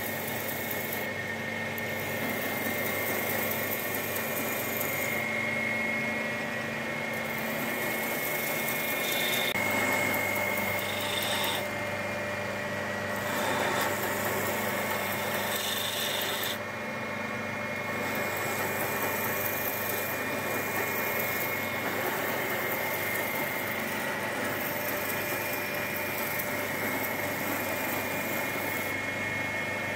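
Electric bench belt sanders running, with a linen micarta knife handle held against the abrasive belt and being ground to shape. The machine hum and grinding hiss are steady, shifting in tone a couple of times.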